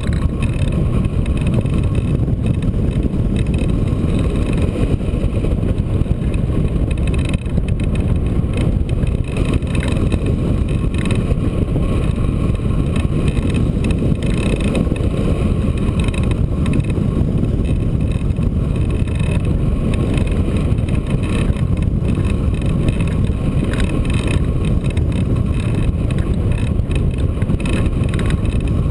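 Wind rushing over a microphone mounted on a hang glider in flight, a loud, steady low rumble with gusty buffeting.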